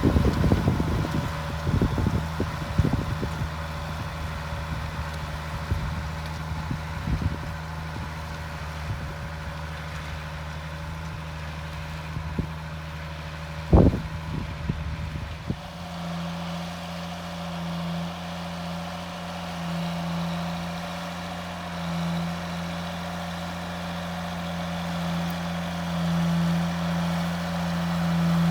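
Ford TW-15 tractor's six-cylinder diesel engine running steadily while pulling a plough. Clattering knocks come in the first few seconds and one sharp knock about halfway through. Shortly after that knock the engine note rises a little and grows louder, swelling and fading slowly.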